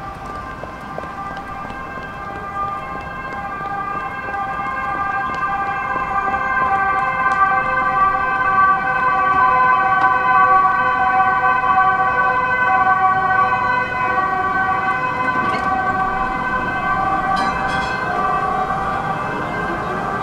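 Tram at the platform: a steady, high-pitched squeal of several tones at once that swells over about ten seconds, then eases slightly. A rising whine starts right at the end, as the tram's motors speed up.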